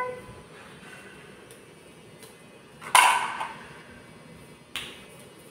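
Toy tongs and a toy saucepan clattering: one sharp knock with a brief ring about three seconds in, and a lighter click near the end.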